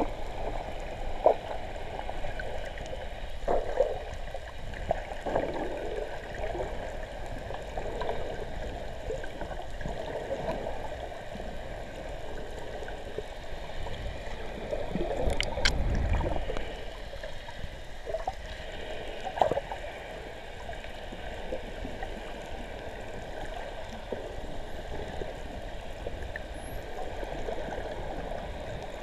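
Water heard underwater by a submerged camera: a steady gurgling wash with scattered bubble pops and clicks, and one sharper click over a louder swell about halfway through.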